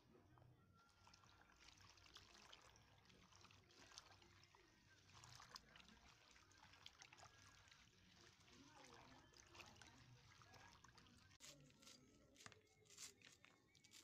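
Faint splashing and sloshing of water as hands rub and rinse leafy greens in a plastic basin, with a few sharper taps near the end.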